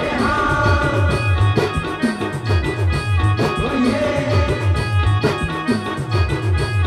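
Adivasi band playing timli dance music: a held keyboard melody over a steady, repeating drum beat with deep bass strokes that slide down in pitch.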